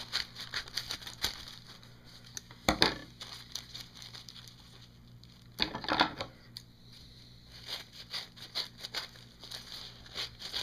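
Scissors cutting a sheet of paper for wrapping caramels, with the paper crinkling and rustling throughout. Two louder, longer swishes come about three and six seconds in.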